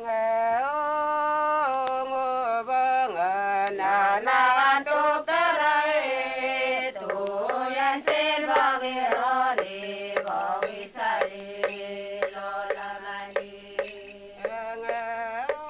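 A group of voices singing a traditional New Guinea song in unison, a chant of held notes stepping up and down, then shorter repeated syllables in the second half.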